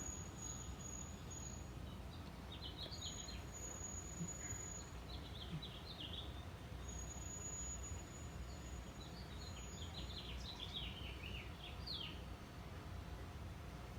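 Small birds chirping in a few short runs of quick notes over a steady low background rumble.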